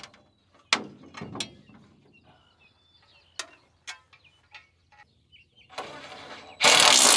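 Scattered sharp clicks and knocks of metal parts and tools, then near the end a loud burst of rushing noise begins and carries on.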